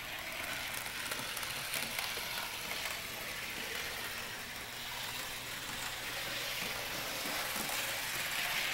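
Model-railway drive running steadily: an even, hissing whir of a small electric motor, gears and wheels on the track, with a faint low hum underneath.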